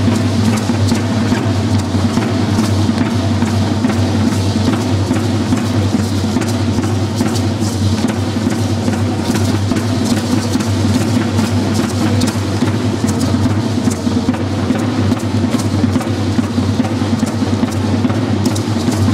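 Drum-led music for a Matachines dance, beating steadily without a break, with many short rattle-like clicks from the dancers' hand rattles shaking along.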